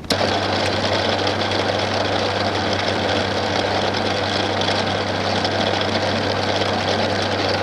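Bernardo P 600 G metal lathe running steadily with a boring bar cutting out the inside of an aluminium piston held in a four-jaw chuck: a constant motor hum under a dense, even cutting noise.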